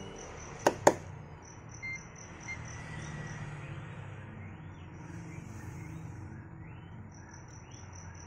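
An insect, cricket-like, chirping in quick even high pulses, in runs of a second or two that stop and start, over a steady low hum. Two sharp clicks come close together about a second in.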